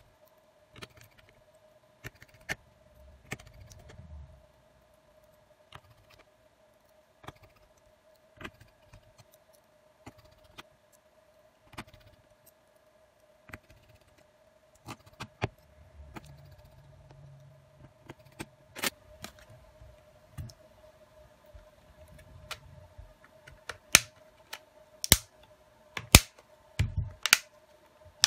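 Light plastic clicks and taps from handling the disassembled Samsung Galaxy A02s. Near the end come several louder, sharp snaps as the phone's plastic body is pressed together along its edge. A faint steady hum sits underneath.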